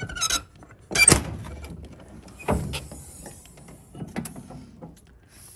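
Exterior compartment door of a bus-conversion motorhome being unlatched by its flush paddle latch and opened: a sharp latch clack about a second in, a second knock about a second and a half later as the door comes open, then a few lighter clicks.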